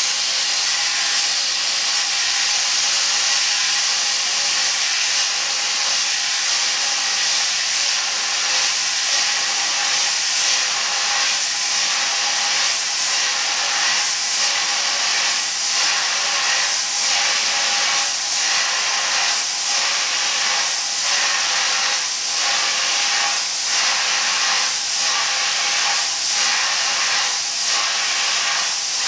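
CO2 dry-ice snow jet cleaner blasting a tray of drive IC chips: a loud, steady hiss of gas and snow from the nozzles. From about a third of the way in it carries a faint pulse roughly every second and a bit.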